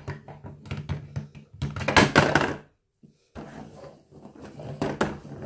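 Plastic toy ambulance knocking and clattering on a wooden tabletop as it is tipped up and set down: a string of thunks, with a louder rattling clatter about two seconds in.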